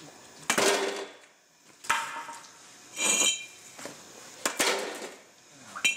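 Metal utensils and dishes clinking and clattering in a handful of separate knocks about a second apart, one with a short metallic ring about three seconds in.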